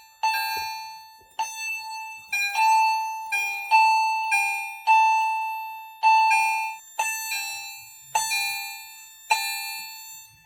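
EST chime strobes sounding a fire alarm: an electronic two-note ding-dong chime repeating over and over, each note struck sharply and fading. The system is in alarm from an activated smoke detector.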